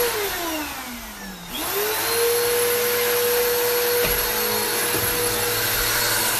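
Vacuum cleaner running, its motor whine sliding down in pitch over the first second and a half, then quickly rising back and holding steady, with a couple of faint knocks later on.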